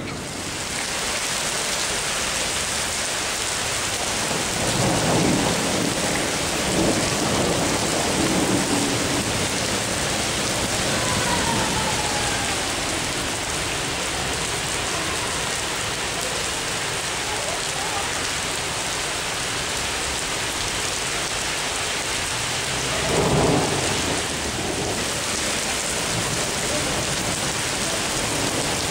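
Heavy thunderstorm rain pouring onto a paved street, a steady hiss. Thunder rumbles through it, swelling louder between about five and nine seconds in, with a short, louder burst about twenty-three seconds in.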